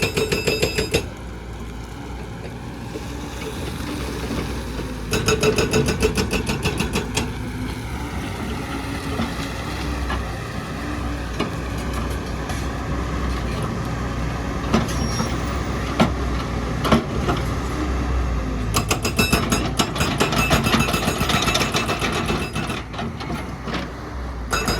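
Heavy excavator engine running, with spells of rapid, even hammering from its hydraulic breaker: a burst that stops about a second in, another from about five to seven seconds, and a longer run from about nineteen seconds to near the end.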